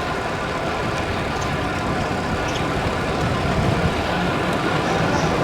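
Motorbike engine running at a steady cruise, with road and wind noise.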